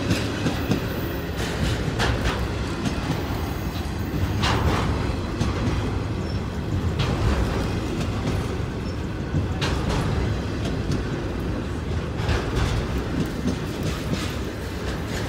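BNSF intermodal freight train rolling past close by: a steady low rumble of steel wheels on rail, broken every second or few by sharp clacks.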